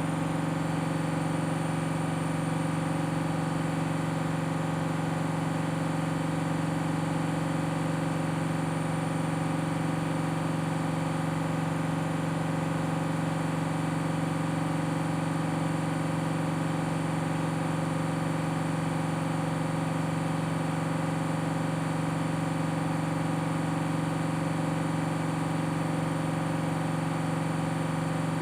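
Washing machine spinning at high speed on a 1600 rpm spin: a steady motor-and-drum hum with a thin high whine above it, holding an even speed.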